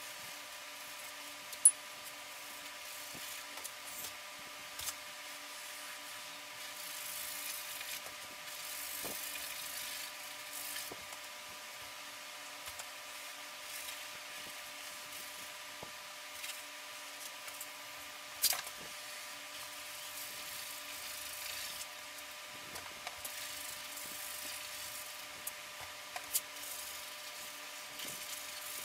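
Paintbrush scrubbing against a canvas in scratchy passes of a second or two, with a few sharp clicks, over a steady electrical hum.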